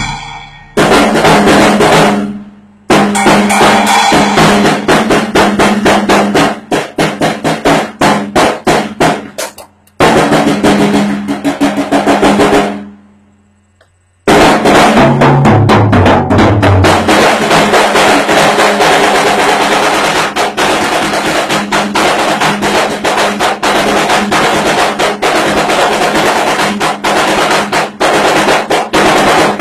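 Acoustic drum kit played in a groove, with snare, bass drum and cymbal hits. The playing breaks off briefly about two and a half seconds in, and again for about a second after thirteen seconds. It then comes back with a tom fill stepping down in pitch and runs on as dense, steady drumming.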